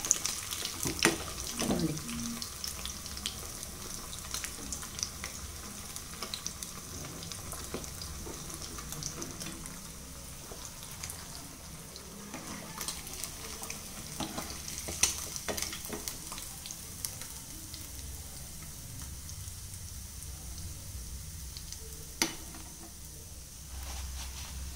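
Hot oil sizzling steadily in a small kadai as rava-coated sardines deep-fry, with a few sharp clicks of a steel slotted spoon against the pan.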